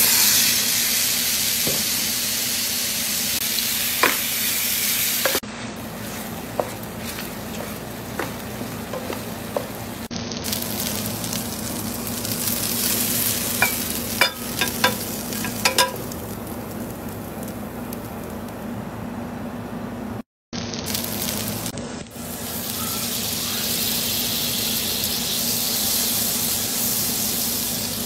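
Spiced chicken pieces sizzling as they fry in a little oil in a nonstick pan on high heat, being stirred, with scattered clicks against the pan. In the middle comes a run of sharp clinks as the cooked pieces are tipped into a glass bowl, and near the end butter sizzles as it melts in oil in the same pan.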